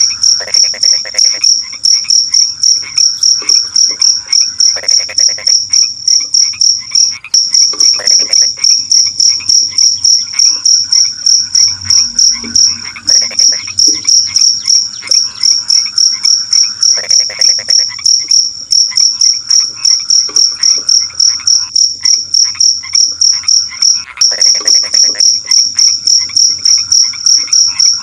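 Crickets chirping at night in a steady high pulse, about four chirps a second, with frogs croaking in short bouts every few seconds underneath.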